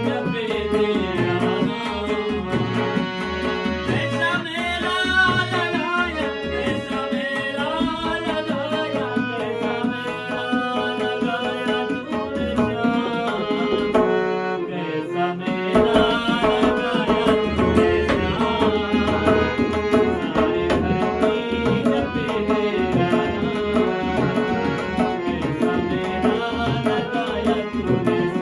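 Harmonium and tabla playing a Hindi devotional song (bhajan): the harmonium's reeds carry the melody over a steady tabla rhythm. The tabla drops out briefly about halfway, then comes back in.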